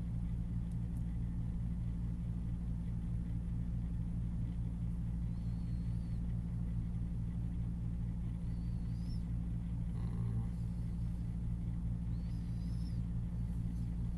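Steady low hum with a fine rapid flutter, with a few faint high chirps from about five seconds in.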